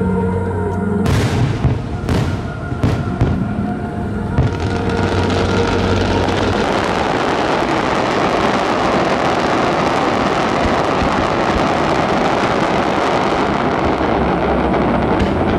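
Fireworks display over music: a few separate bursts in the first few seconds, then a dense, continuous crackling of many shells going off together for the rest, with the music still faintly underneath.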